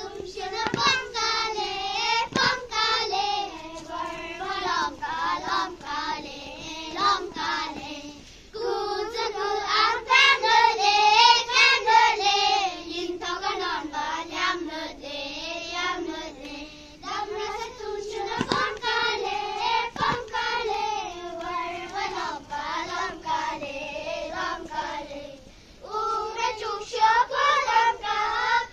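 A high voice singing an unaccompanied, wavering melody in long phrases, with short breaks between them.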